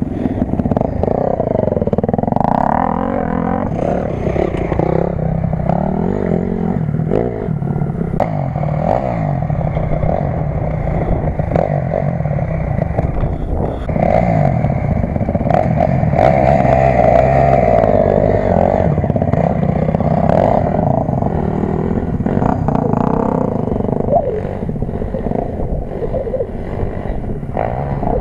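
Dirt bike engines revving, the pitch rising and falling with the throttle, loudest from about halfway through.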